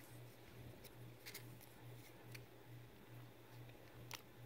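Near silence with a few faint crackles and ticks of a small folded paper leaflet being unfolded by hand, over a low pulsing hum.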